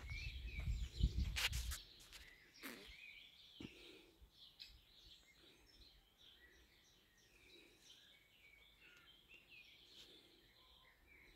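Small birds chirping faintly and often in a garden. In the first two seconds there is low rumbling with a few sharp knocks.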